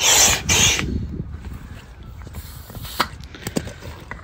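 Double-action hand pump inflating an inflatable kayak's air chamber: two quick rushes of air, one per stroke, in the first second, then the pumping stops. A few light clicks follow near the end.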